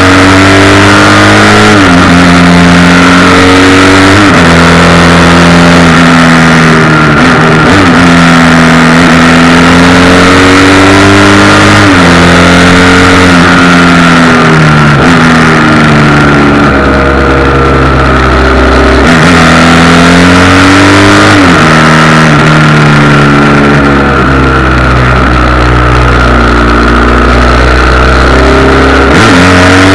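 Motorcycle engine under way at speed, its pitch climbing steadily and then dropping sharply at each gear change, several times over. It is loud on a cheap action camera whose mount adds a rattling buzz.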